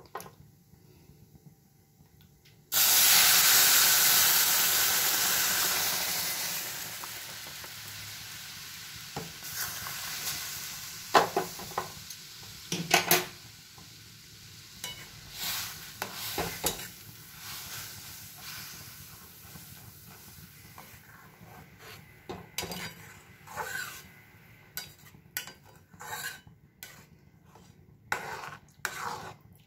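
Hot milk poured into a hot karai of ghee-fried vermicelli: a sudden loud sizzle about three seconds in that fades away over several seconds. Then a spatula stirring in the metal pan, with scattered scrapes and taps against its sides.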